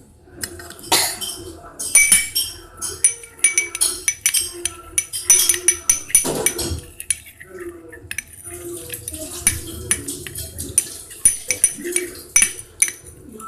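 A spoon clinking and scraping against a bowl in rapid, irregular taps while the slime mixture is stirred.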